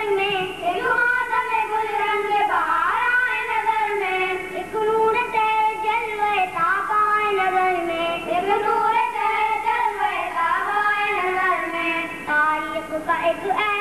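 A boy singing an Urdu tarana into a microphone in a high voice, holding long notes that glide between pitches.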